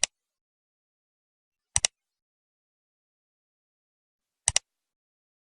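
Three sharp double clicks: one at the start, one about two seconds in and one about four and a half seconds in, with dead silence between them.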